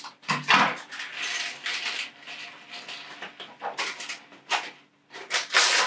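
Plastic parts bags rustling and crinkling, with loose Lego pieces clicking and clattering on a tabletop as they are tipped out and sorted. The sound comes as irregular crackles and clicks, with a short lull about five seconds in.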